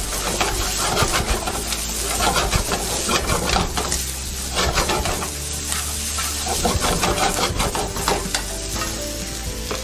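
Fried rice and mixed vegetables sizzling in a hot wok as a spatula stirs and tosses them, with frequent scrapes and taps of the spatula against the wok.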